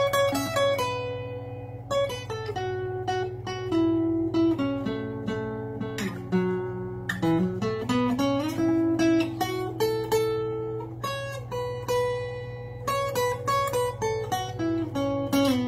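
Acoustic guitar fingerpicked in a blues, single notes and chords over a moving bass line, with a low run of notes a little past the middle.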